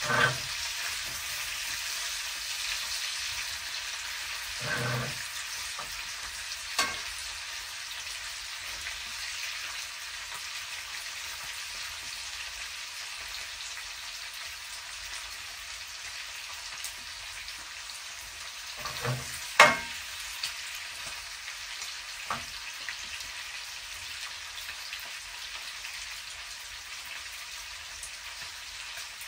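Bacon and mini sausages frying in a pan, a steady sizzling hiss, broken by a few short knocks, the loudest about twenty seconds in.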